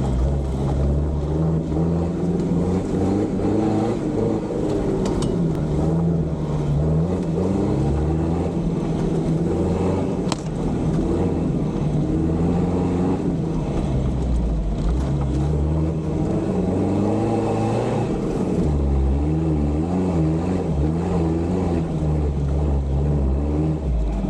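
Off-road vehicle's engine heard from on board, its pitch rising and falling again and again as the driver works the throttle along a rough track, with a few knocks from the vehicle along the way.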